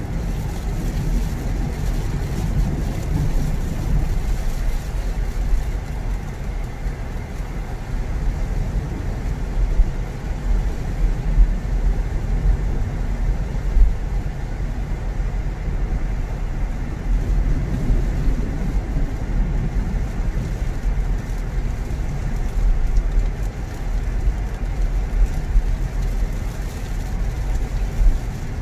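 Car driving: a steady low rumble of engine and tyre noise, with a few brief louder bumps.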